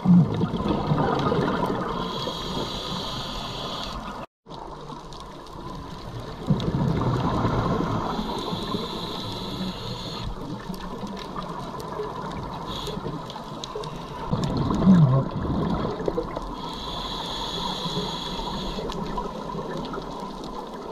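Scuba diver breathing through a regulator underwater: rumbling gushes of exhaled bubbles, each followed by the regulator's hiss on the inhale, in about three breaths roughly seven seconds apart. The sound drops out briefly about four seconds in.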